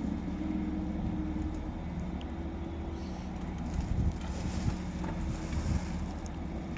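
Large crane's engine running with a steady low drone while lifting a cut willow limb, with some wind on the microphone.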